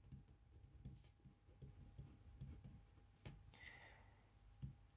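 Faint pen writing on paper: light, irregular ticks and scratches of the pen strokes.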